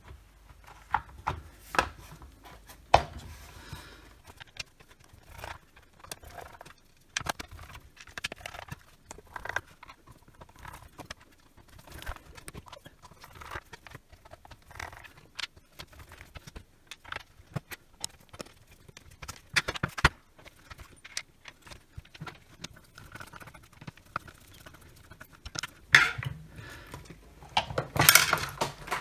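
Hard plastic housing of a cordless circular saw being fitted together and handled on a rubber mat: irregular clicks, taps and rattles throughout, with a few sharper knocks. Near the end comes a louder clatter as the saw is turned over and set down.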